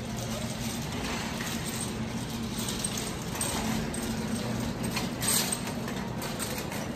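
Wire shopping cart rattling and clinking as it is pushed across a store floor, over a steady low hum, with a brief louder rattle about five seconds in.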